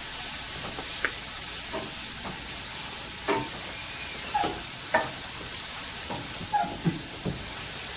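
Shredded beets and carrots sizzling in ghee with cumin seeds in a stainless steel sauté pan, stirred with a wooden spoon. A steady frying hiss runs throughout, broken by short scrapes and knocks of the spoon against the pan now and then.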